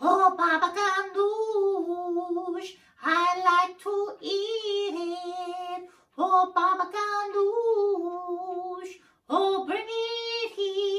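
A high voice singing unaccompanied: four short phrases, each a quick run of syllables ending on a held note.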